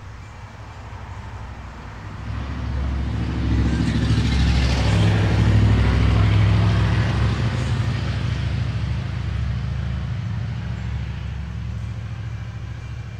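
A large motor vehicle passing by: a low engine hum that builds to a peak about five seconds in, then slowly fades away.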